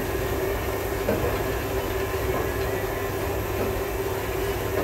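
Air compressor running with a steady drone and a constant hum.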